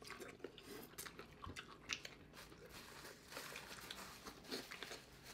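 Faint biting and chewing on sauce-coated corn on the cob: scattered small crunches and mouth clicks.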